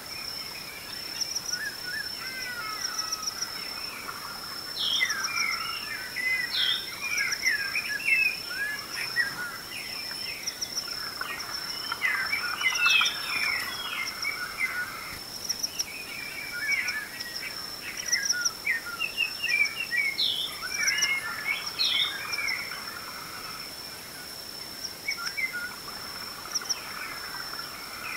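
Dawn chorus of many birds calling and singing over one another in overlapping bursts, over a steady high-pitched trill.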